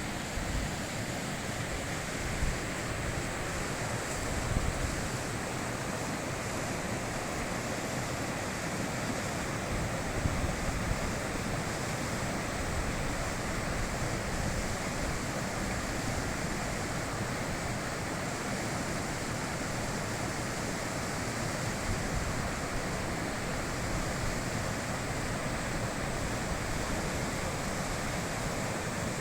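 Fast mountain river rushing over rocks: a steady, even roar of flowing water, with a few low buffets of wind on the microphone.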